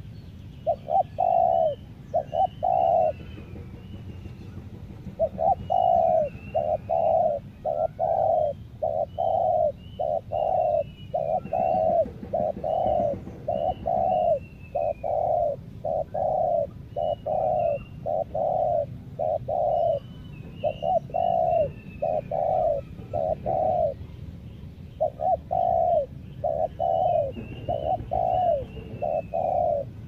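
Spotted dove cooing loudly: short coos repeated in long runs of about two a second, breaking off briefly about three seconds in and again near twenty-four seconds. Fainter chirps of smaller birds sound above it.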